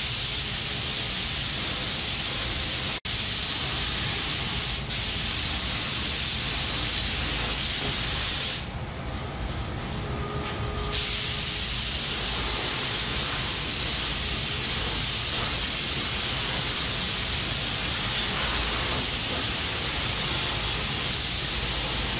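Gravity-feed compressed-air paint spray gun hissing steadily as it sprays paint onto an engine block; the hiss drops away for about two seconds near the middle, then resumes.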